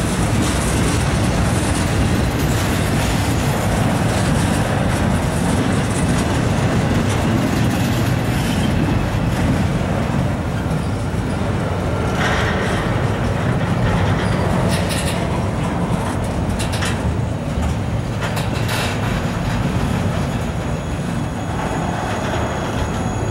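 Freight train's intermodal well cars rolling past: a steady rumble with wheel clatter on the rails and a few sharper clanks in the second half. The sound eases a little near the end as the last car goes by.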